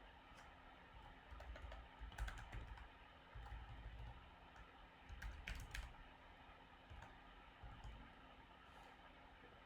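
Faint computer keyboard typing: several short runs of keystrokes, each key a light click with a dull low thud beneath.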